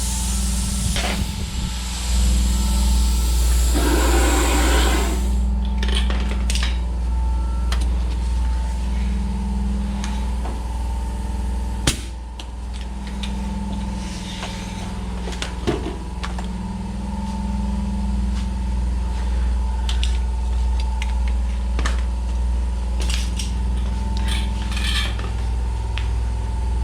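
A machine runs with a steady low hum and a constant higher tone. A hiss sounds for the first few seconds and a short noisy burst comes about four seconds in. After that come scattered sharp clicks and taps of metal work.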